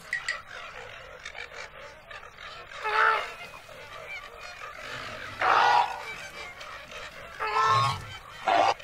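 Flamingos honking: four short calls, the first two a couple of seconds apart and the last two close together near the end, over faint steady background noise.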